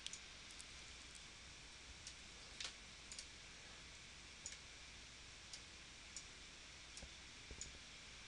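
Faint computer mouse clicks, about a dozen at irregular intervals, over near-silent room tone.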